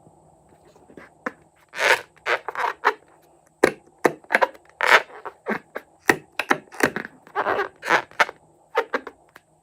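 Slime being mixed and handled: an irregular run of short, sticky crackles and squelches with brief pauses between them.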